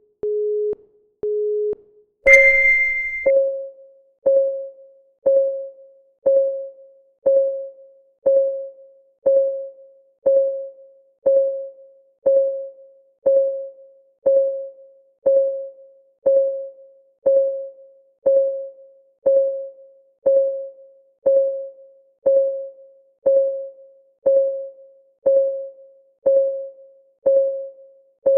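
Two short electronic beeps, then a brighter chime about two seconds in, followed by a countdown timer's ticking sound effect: one tick every second, each with a short pitched ring that fades.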